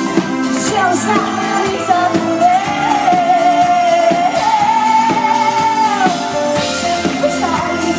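A woman singing a pop song live with a band (drum kit and keyboards) behind her, holding one long note with vibrato from about two and a half to six seconds in.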